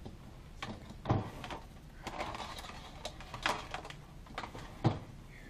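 A few light knocks and clicks from handling a hospital overbed table. The loudest come about a second in, just past the middle, and near the end.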